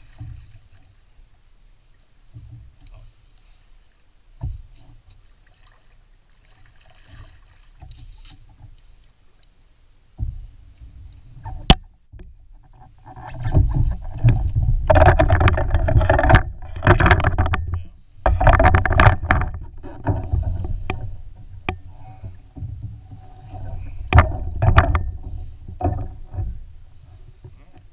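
A shortnose sturgeon being landed into a Trident 13 kayak. It starts quiet with a few light knocks and a sharp click. Then, before halfway, comes several seconds of loud splashing and knocking against the kayak hull as the fish is brought over the side, with a few more knocks near the end.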